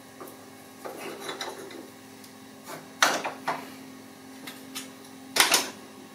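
Metal clicks and scrapes as the butterfly plate is worked loose with pliers and slid out of the throat of a rusty Hart-Parr tractor carburettor, in short bursts with the loudest clatter near the end.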